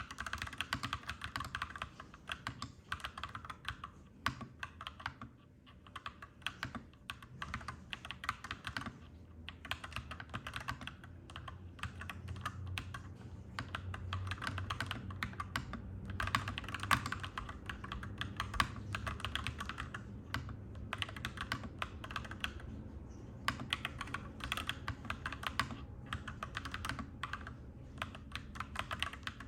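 Fast typing on a clacky mechanical keyboard, key clicks in runs broken by short pauses. A low rumble sits underneath and swells through the middle.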